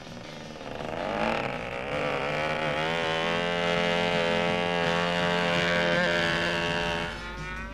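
A radio-controlled scale model aircraft's small engine buzzing in flight. The engine climbs in pitch over the first couple of seconds, holds steady, then fades near the end.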